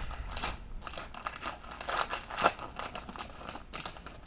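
Trading cards and a pack wrapper being handled: irregular rustling, crinkling and small clicks, with the sharpest crackle about two and a half seconds in.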